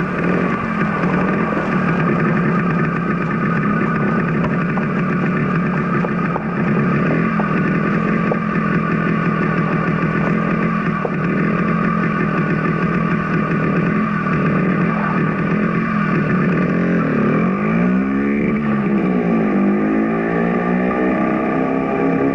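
Motorcycle engine running steadily as the bike carries two riders off along a forest track; near the end its tone wavers and sweeps up and down as it moves away.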